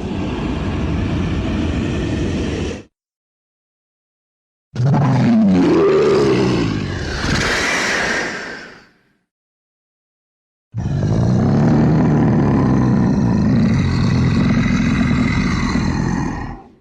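Dragon roar sound effect: three separate low, growling roars, each a few seconds long and cut off into dead silence. The middle roar bends up and down in pitch and ends in a hissy rush.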